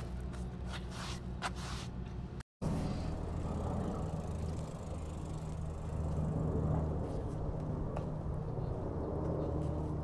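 A vehicle engine running steadily at idle, heard from inside its cab. In the first couple of seconds a few short scraping sounds lie over the hum.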